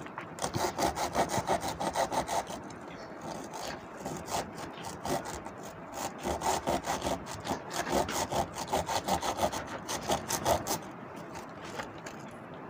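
A bare hacksaw blade, held in the hand, sawing through the old coil wires in a ceiling fan's stator slots. It goes in quick back-and-forth scraping strokes, in runs broken by short pauses, as the burnt-out winding is cut free for rewinding.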